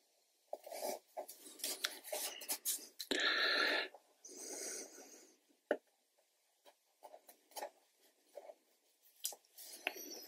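Masking tape being handled, torn into narrow strips and pressed and rubbed down onto watercolour paper by hand: scattered rustles and scratches, with two longer rasps a little after three and four seconds in.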